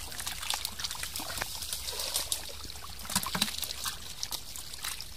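Wet dribbling and small irregular splashes and squelches in shallow muddy water as hands grope through mud for small fish.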